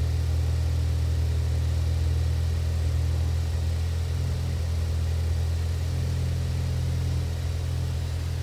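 A 2013 Ford Focus ST's 2.0-litre turbocharged four-cylinder engine idling steadily at about 1,000 rpm, heard from inside the cabin.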